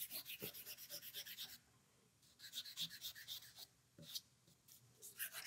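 Stick of vine charcoal scribbled rapidly back and forth on paper, a faint scratchy rhythm of several strokes a second in two runs with a short pause between. The charcoal is being rubbed over the back of a drawing to make homemade transfer paper.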